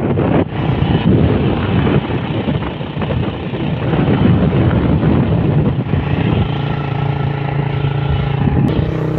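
Motorcycle engine running while riding, with wind rushing over the microphone; a steady engine hum comes through more clearly about two-thirds of the way in.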